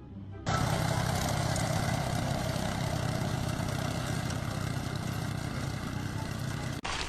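An engine running steadily, starting about half a second in and cutting off abruptly near the end.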